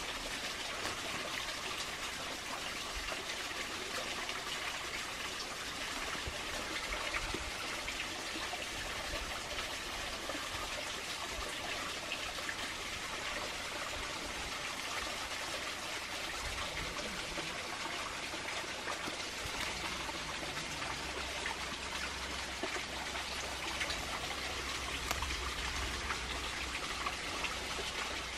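Steady trickling, running water, an even hiss that holds at one level throughout, with a low rumble in the second half.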